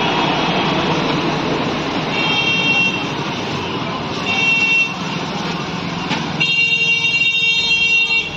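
Handheld electric rotary grinder or sander running with a rough grinding noise, then a steady high whine near the end as the disc spins freely.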